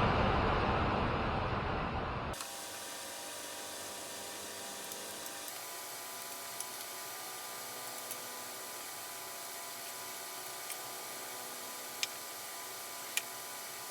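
A loud rushing hiss that fades and then cuts off abruptly about two seconds in, followed by a faint steady hiss with a few light clicks.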